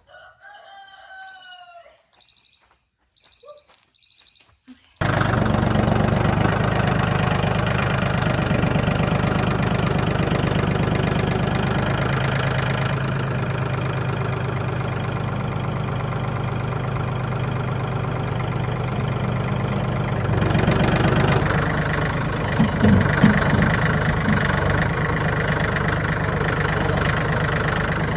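An engine comes in abruptly about five seconds in and runs steadily. Its sound changes a little about two-thirds of the way through, with some uneven knocks near the end.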